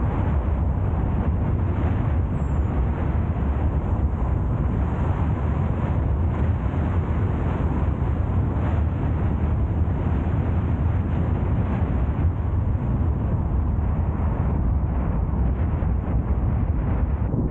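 Car driving at a steady speed: a constant rumble of road and wind noise, heaviest in the low end, with no changes.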